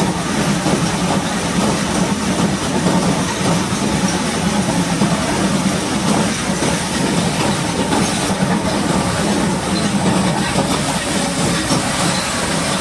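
Steady heavy mechanical drone under a continuous hiss of high-pressure water spray, as a large bulldozer is washed down.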